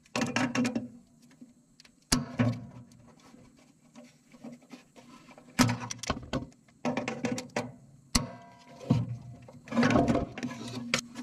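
Locking pliers clicking, knocking and scraping on a fuel-tank drain valve in several short bursts of metal clicks, the jaws slipping on the valve rather than turning it.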